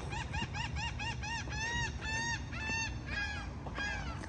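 A bird calling in a long run of about fifteen arched notes, short and quick at first, then slower and longer toward the end.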